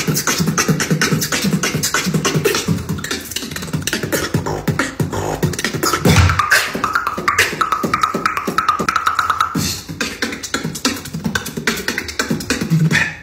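Beatboxing: a fast rhythm of vocal kick and snare sounds made with the mouth, with a held hummed tone laid over the beat through the middle stretch.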